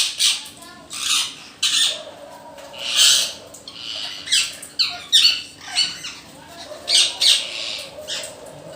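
Parrots giving repeated loud, harsh squawking calls, a dozen or so short calls, some falling in pitch.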